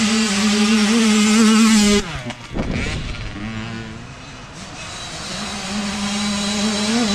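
Dirt bike engine pulling steadily on a trail, then the throttle cuts about two seconds in and the revs fall away sharply. It runs low and quieter for a moment, then builds back up toward the end.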